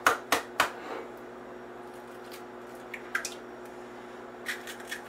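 A raw egg being cracked: a few sharp taps of the shell against a rim, then soft squishy sounds as it is opened and emptied. A microwave oven hums steadily underneath.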